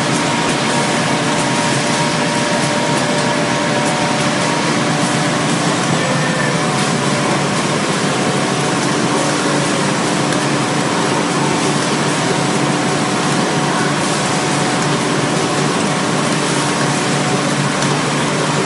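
Automatic facial tissue packing machine and its belt conveyor running: a steady, loud mechanical din with a few faint held hums and no distinct strokes standing out.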